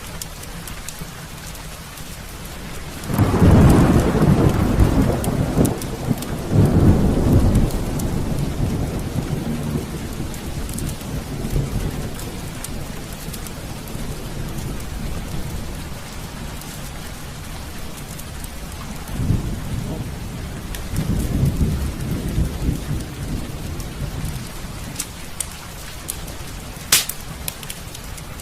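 Heavy rain falling steadily, with a long rolling thunderclap a few seconds in that fades out over several seconds, and a softer second roll of thunder past the middle. A single sharp click sounds near the end.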